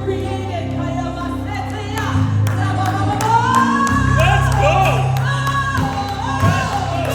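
Gospel worship music: voices singing held, gliding melody lines over steady instrumental backing with a sustained bass.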